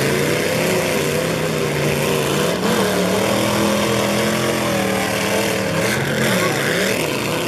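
Mud racer's engine running at high revs as the buggy ploughs through a deep mud pit. Its pitch holds fairly steady, then rises and falls several times near the end as the throttle is worked.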